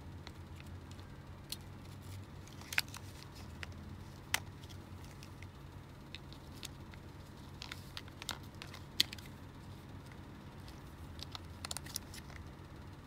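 Scattered sharp plastic clicks and knocks as AA batteries are handled and pushed into the battery compartment of a plastic toy soldier, over a faint steady low hum.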